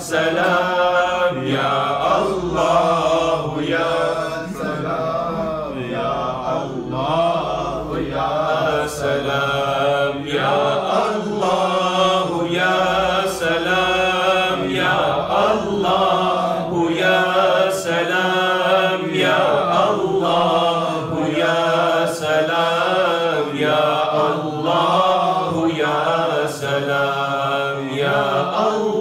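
A man chanting Islamic devotional verses into a microphone, his voice rising and falling in long melodic phrases with no pauses.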